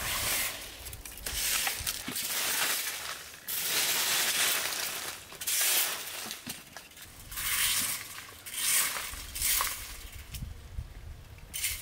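Bursts of rustling and crunching noise, each lasting about a second or two, repeated several times.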